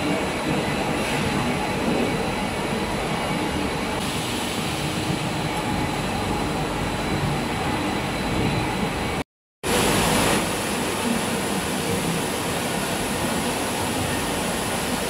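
Steady din of factory production machinery, a continuous mechanical rumble with a faint high whine. It cuts out for a moment about nine seconds in, then carries on.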